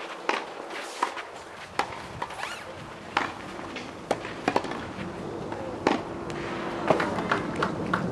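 Tennis rally in a doubles match: sharp pops of the ball off racket strings and the court, about a dozen at irregular spacing, several coming quickly together during volleys at the net, with players' footsteps on the court.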